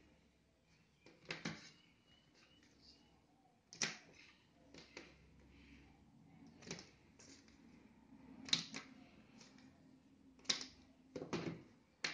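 Plastic drip-irrigation tubing and fittings being handled and cut with scissors: about eight sharp clicks and snips, spaced irregularly.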